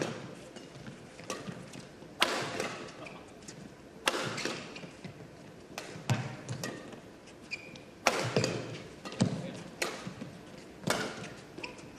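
A badminton rally: rackets striking the shuttlecock again and again, sharp cracks about a second apart at an irregular pace, with a few short squeaks of shoes on the court.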